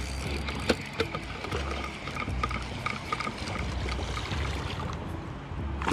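A small hooked largemouth bass splashing and thrashing at the pond surface as it is played in on the line, with a couple of sharp clicks about a second in.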